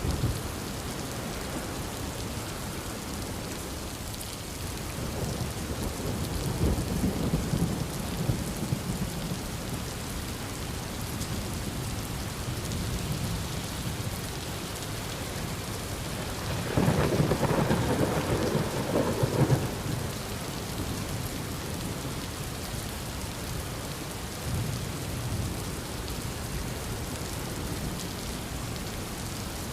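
Heavy rain falling steadily, with rolls of thunder: a low rumble about five seconds in, a louder crack and rumble just past the middle, and a fainter rumble near the end.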